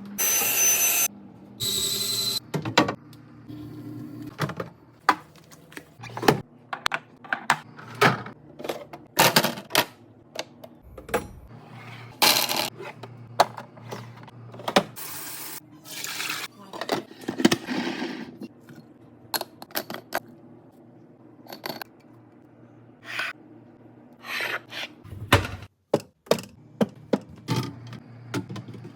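Fridge containers and food items being handled and set down: an irregular string of clicks and knocks of plastic and glass, with rustling in places.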